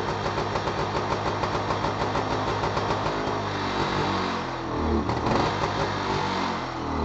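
Rajdoot two-stroke motorcycle engine, just kick-started, running with a steady, rapid idle beat. The throttle is blipped a few times from about three seconds in, so the revs rise and fall before it settles.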